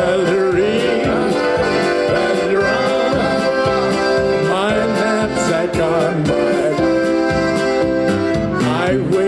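Live polka band playing: accordion and keyboards over an even, pulsing bass beat, with singing.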